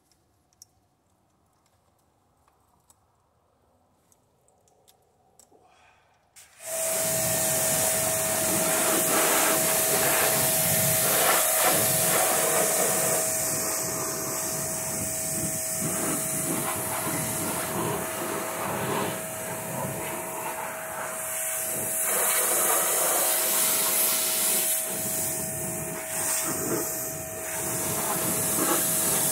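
A few faint clicks, then about six seconds in a powered cleaning machine switches on and runs with a loud, steady hiss and a steady whine.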